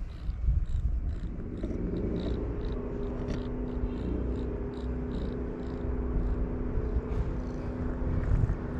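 Domestic cat purring steadily, close to the microphone, with a steady low hum coming in about a second and a half in.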